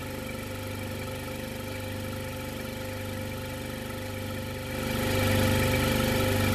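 Corken reciprocating LPG gas compressor running steadily as it draws vapour from the storage tank and pushes it into the transport, a continuous machine hum that grows louder about five seconds in.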